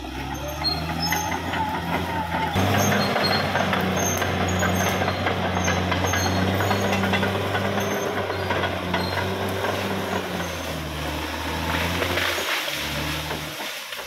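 Caterpillar D6R XL bulldozer's diesel engine running under load with a steady low drone and a noisy rattle above it. The engine note steps up about two and a half seconds in and falls away near the end.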